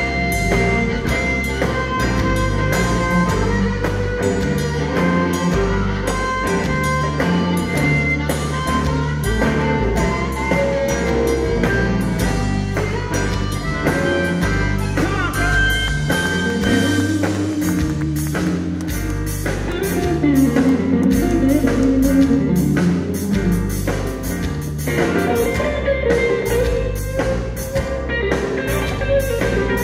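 Live blues band playing: drum kit, bass guitar and electric guitars, with regular drum hits under held and bending guitar lines.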